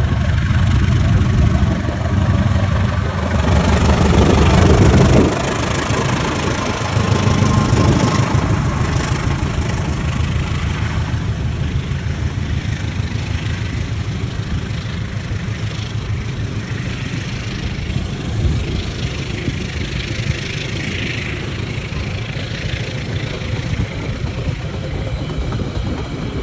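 Commuter train's engine running close by: a heavy, steady rumble with a low hum, loudest about four to five seconds in, then holding steady.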